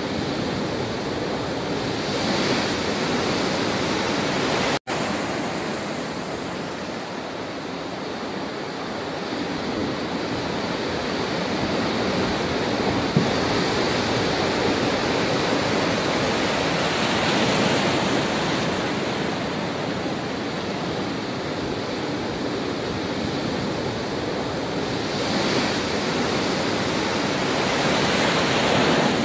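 Heavy storm surf crashing against a rocky shore and a concrete breakwater: a continuous rush of breaking water that swells louder about two seconds in, around eighteen seconds and near the end. The rough sea is whipped up by a cyclone. The sound cuts out for an instant about five seconds in.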